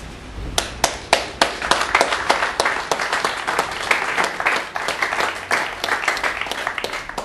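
Crowd applauding: a few separate claps about half a second in, quickly filling out into sustained clapping from many hands.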